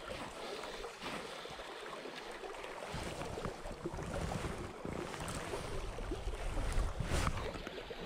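River current rushing and lapping around a wading angler, with wind buffeting the microphone from about three seconds in and a brief swish near the end.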